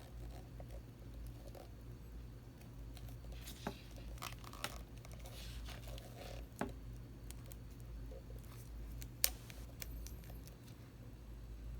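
Contax RTS III camera being handled: a few scattered faint clicks and brief rustling, the sharpest click near the end, over a steady low hum.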